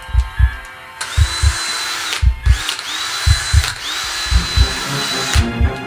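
Cordless drill run in three short bursts starting about a second in, each whine rising as the motor spins up and then holding steady. Underneath, low paired thumps like a heartbeat keep pulsing.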